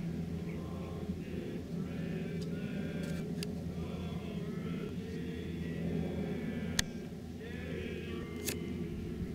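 Distant group singing of a national anthem, faint over a steady low hum, with a few sharp clicks, the loudest about seven seconds in.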